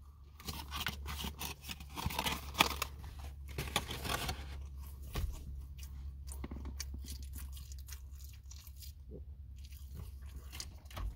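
A person chewing a mouthful of fish filet sandwich close to the microphone, with soft crunching and mouth noises, busiest in the first four seconds and sparser after. A steady low hum runs underneath.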